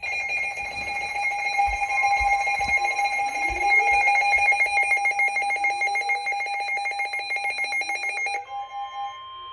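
Electronic emergency alert tone announcing a severe thunderstorm warning: several steady high tones pulsing rapidly, with repeated rising sweeps. About eight and a half seconds in it switches to a quieter, steadier chord of tones.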